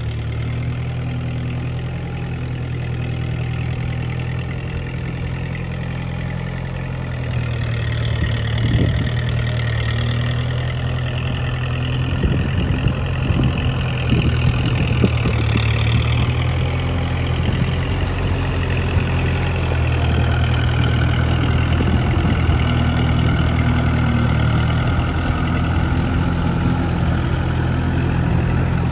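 Kubota 4x4 farm tractor's diesel engine running steadily while the tractor pulls a rotavator through flooded paddy mud, with a higher whine that drifts in pitch. The sound grows louder from about a quarter of the way in, with a few brief knocks in the middle.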